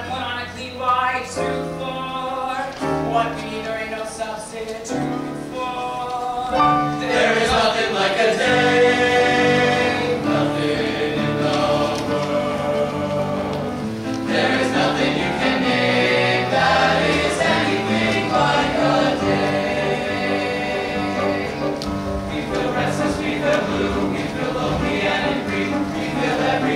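Young male vocal group singing in harmony without instruments, low bass notes moving step by step under held chords.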